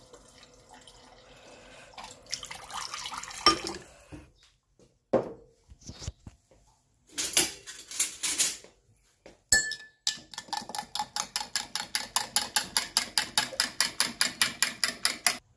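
Kitchen tap running into a glass, then scattered clatter of glassware and dishes. About two-thirds of the way through, a metal spoon stirs a drink in a glass, clinking fast and evenly against the sides, several times a second, until it stops abruptly near the end.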